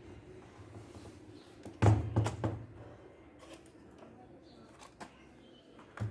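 A quick cluster of hard knocks and clicks about two seconds in, the loudest sounds here, then a few faint ticks over a low steady hum.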